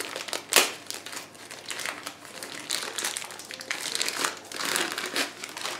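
Clear plastic bag crinkling and rustling as a microphone is handled and unwrapped from it, in irregular crackles with a sharp one about half a second in.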